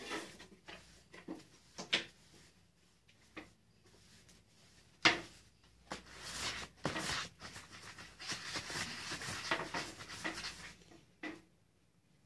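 Knocks and rustling of things being handled, with a sharp knock about five seconds in, then a longer stretch of rustling and scraping that stops near the end.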